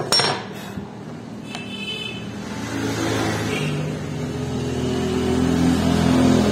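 A sharp metallic click right at the start, then background music fading in with low sustained notes that grow louder toward the end.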